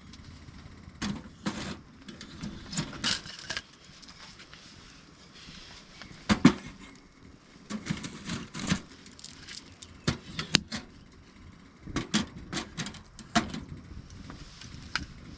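Camp cookware and utensils being handled: scattered light clinks and knocks in several short clusters.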